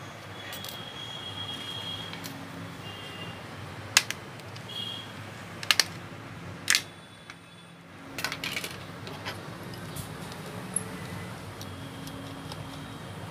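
Sharp plastic clicks and taps of a smartphone being taken apart by hand, with a few loud clicks about four to seven seconds in, over a low steady hum.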